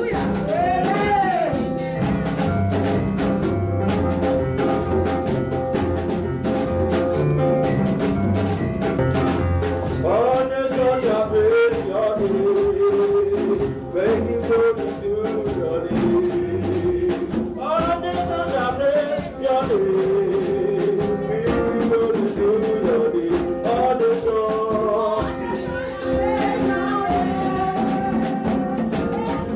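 Worship music: a voice singing a slow, held melody over stepping bass notes and steady shaken percussion.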